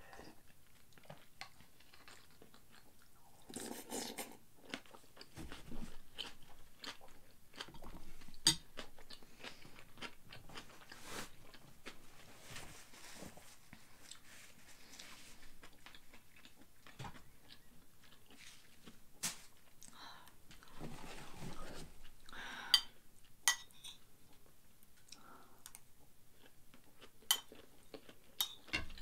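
A person eating fried rice: chewing and biting with soft mouth noises, broken by a few sharp clinks of a metal spoon against a ceramic plate, the loudest near the end.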